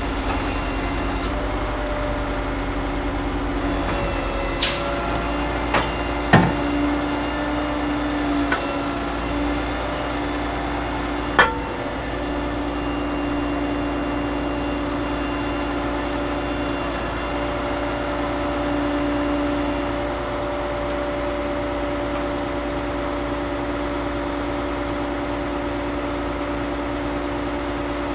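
Heavy diesel engine of a log truck running steadily to power its knuckleboom loader, with a few sharp metal clanks in the first dozen seconds, the loudest about six seconds in.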